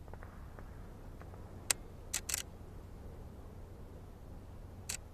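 A few short, sharp clicks, four in all, the loudest about a second and a half in and a close pair just after, over a low steady rumble.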